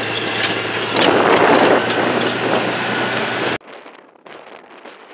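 Vehicle running as it drives, heard from inside the cab: a steady low engine hum under loud road noise. About three and a half seconds in it cuts off abruptly to quieter, gusty wind on the microphone.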